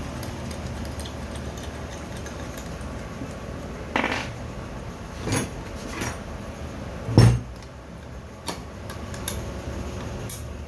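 Metal-on-metal clinks and knocks from handling turbocharger parts and tools on a workbench: about six sharp strikes, the loudest about seven seconds in, over a steady low hum.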